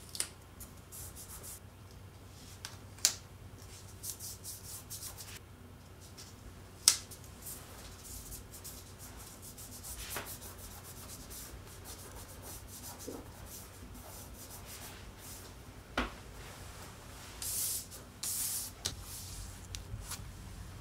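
Hands rubbing and pressing strips of tape and photo prints flat against a plaster wall: a dry scraping and rustling that comes and goes, with a few sharp taps of fingers on paper.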